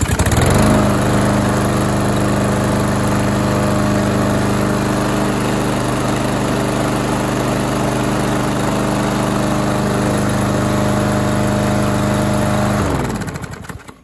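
Craftsman M230 mower's 163cc Briggs & Stratton engine starting up and running steadily at a constant speed, then shut off near the end and winding down. It runs smoothly now that its clogged carburetor main jet has been cleaned.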